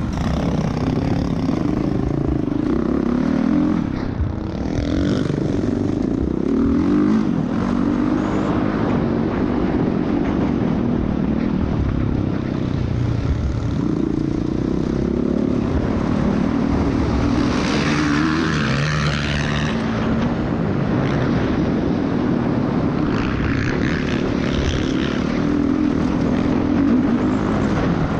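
Motocross dirt bike engine running on a lap of a dirt track, its pitch rising and falling as the throttle opens and closes. Heard from an onboard camera, with wind rushing over the microphone and a louder rush of noise about two-thirds of the way through.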